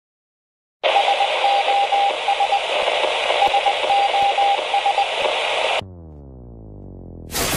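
Show-intro sound effect: radio static comes in after a moment of silence, with a Morse-code beeping tone keyed in two runs of dots and dashes. The static cuts off into a quieter low tone that falls in pitch, and a sudden loud hit near the end launches the intro music.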